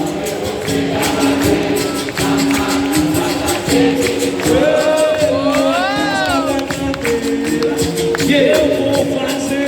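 Capoeira roda music in the Benguela rhythm: berimbaus holding and shifting between a few notes, with a pandeiro and the group singing call-and-response.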